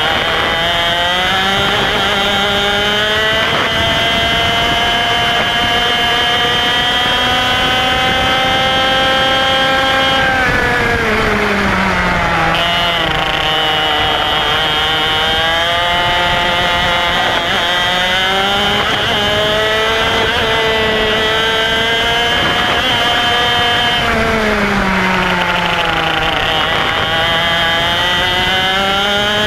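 IAME X30 125cc two-stroke kart engine at racing speed, heard from on board: its pitch climbs steadily through each straight, then falls away sharply twice as the kart slows for a corner, about ten seconds in and again about twenty-four seconds in.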